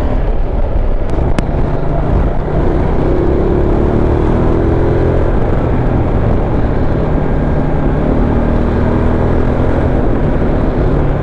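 Motorcycle engine running at a steady cruising speed, with heavy wind rumble on the microphone while riding.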